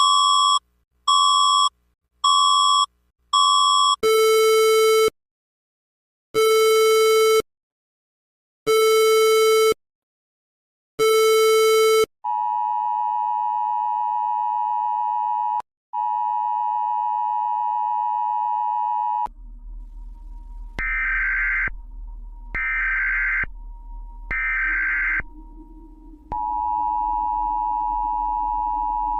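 Electronic emergency alert tones in several different patterns: four quick beeps, then four longer, lower beeps about two seconds apart, then a long steady tone broken once. After that come three short higher beeps over a low hum, and then another steady tone.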